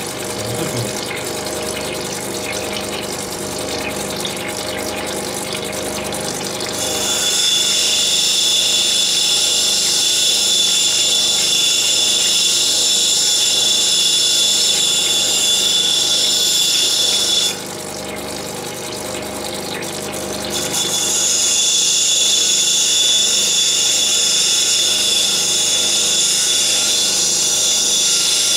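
Diamond Pacific Genie lapidary machine running with its water drip, a steady motor hum. About seven seconds in an opal is pressed to a wheel and a loud, high grinding hiss sets in. It stops for about three seconds when the stone is lifted off, then starts again.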